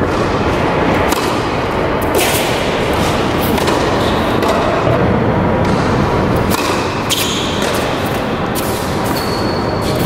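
Tennis ball being bounced and struck with rackets on an indoor hard court: a few sharp, separate knocks of bounces, a serve and a return, over a steady loud rushing background noise.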